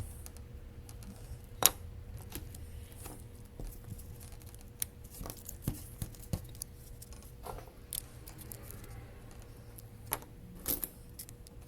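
Scattered small clicks and taps of a portable speaker's plastic housing and internal parts being handled and fitted, with one sharp click about one and a half seconds in.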